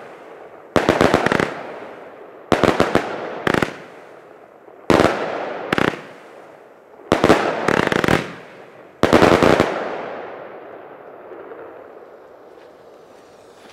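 A Lesli Thunder Kong XXL salute battery firing, with about six volleys of rapid, sharp bangs that echo away after each one. The last volley comes about nine seconds in.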